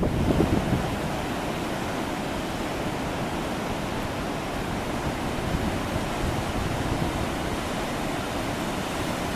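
Fast mountain river rushing over and between granite boulders in small whitewater cascades: a steady, even rush of water.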